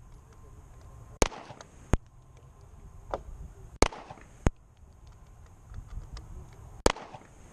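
Smith & Wesson M&P 40C pistol firing single shots at its .40 S&W chambering, about six cracks spaced roughly a second or more apart, some louder and sharper than others, while its red-dot optic is sighted in.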